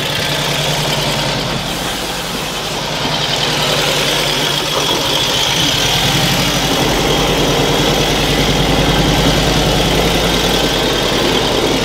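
1948 Indian Chief's flathead V-twin engine running at a steady, even beat.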